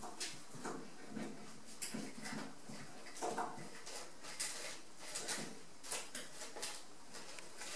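Five-week-old Rat Terrier puppies at play: scattered short yips and little growls amid light scuffling and clicks.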